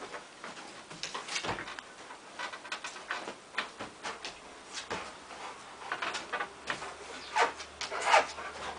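A Rottweiler's paws scrabbling on bedding and scratching at a wall: a run of irregular thumps, scrapes and rustles, loudest just before the end.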